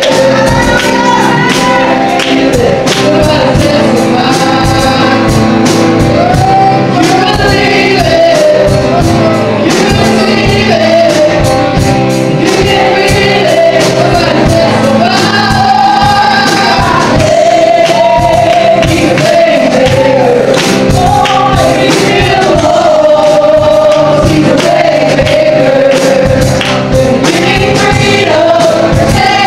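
Live gospel worship music: a man singing and playing guitar with women singing along into microphones, over a steady beat.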